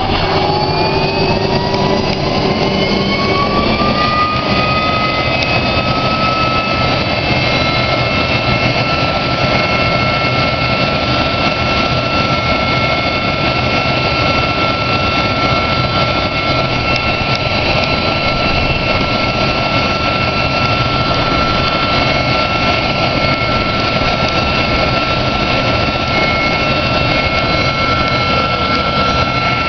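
A-7 Corsair II's jet engine running on the ground during a run-up: its whine rises in pitch over the first few seconds, then holds steady over a loud, even rush.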